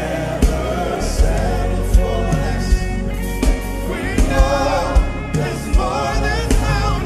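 Gospel worship song: singers with a band, over repeated heavy drum beats. The voices waver in pitch and are most prominent from about four seconds in.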